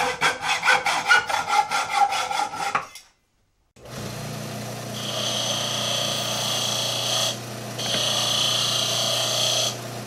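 Hacksaw cutting through a steel threaded rod with quick, even back-and-forth strokes for about three seconds. After a short gap, a bench disc sander's motor starts and hums steadily while the cut end of the rod is ground against the disc. The grinding stops briefly midway, then resumes until near the end.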